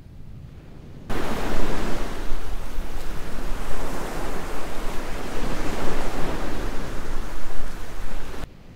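Breaking surf rushing over the shore: a loud, even hiss that swells and ebbs with the waves. It starts abruptly about a second in and cuts off abruptly near the end, over a faint low rumble.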